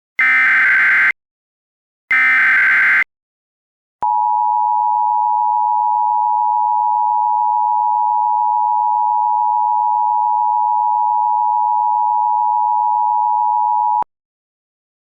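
Emergency Alert System tones, simulated. Two short bursts of the SAME digital header data come first, then the two-tone EAS attention signal holds steady for about ten seconds and cuts off sharply.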